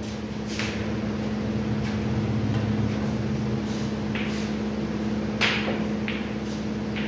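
Snooker balls clicking: the cue strikes the cue ball and the balls knock together in several sharp clicks, the loudest about five and a half seconds in, over a steady low hum.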